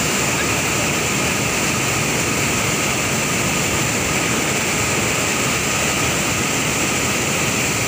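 Fast, turbulent white water rushing steadily past a concrete river bank, an even, unbroken rush of water.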